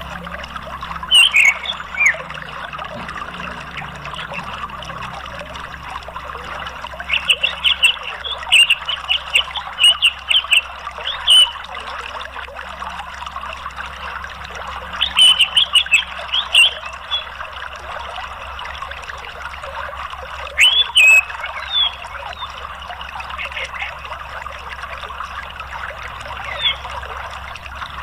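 Steady rush of running water, like a stream or small waterfall, broken several times by clusters of short, rapid, high-pitched chirps.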